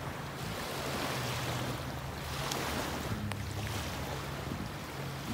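Small waves washing up and drawing back on a sandy beach, the wash swelling and ebbing every second or two, with a low steady drone underneath.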